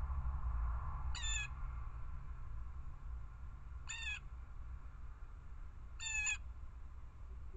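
Blue jay giving three short, harsh jay calls, a few seconds apart, over a steady low rumble.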